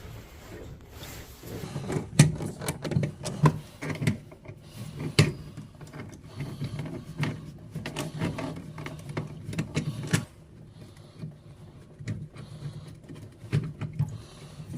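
A run of irregular sharp clicks and knocks over a low steady hum, thinning out and dropping in level about ten seconds in.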